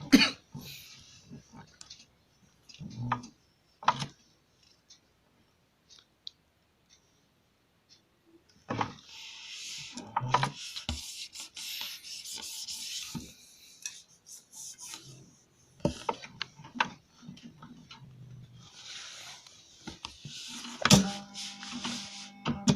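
Fabric and cord being handled: rubbing and rustling in two longer stretches, with scattered clicks and taps.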